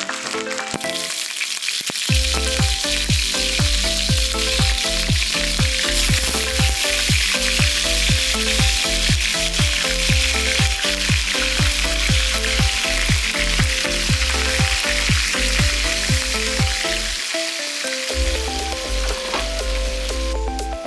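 Food frying in hot oil in a pan, a steady dense sizzle, under background music with a regular drum beat.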